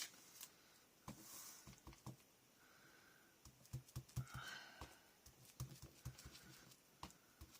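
Faint, irregular soft tapping and light rustling: a foam ink-blending tool dabbed through a stencil onto paper.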